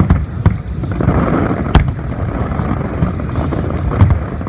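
Fireworks going off in quick succession: a continuous low rumble of booms with many short bangs, and one sharp, loud crack a little under two seconds in.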